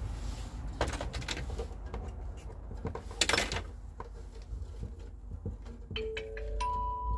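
Light clicks and knocks of small plastic and metal parts being handled as a diesel heater's fuel pump, filter and fuel line are fitted together, with a brief rustle about three seconds in and a short steady tone near the end.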